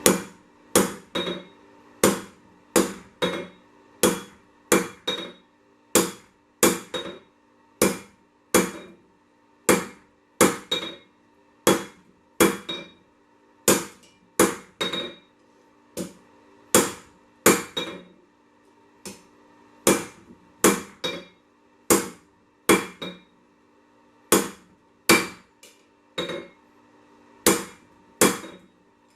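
Blacksmith's hammer striking 1085 carbon steel on an anvil to draw out the bar: a steady run of blows, about one and a half a second, each with a short metallic ring, broken by a few brief pauses.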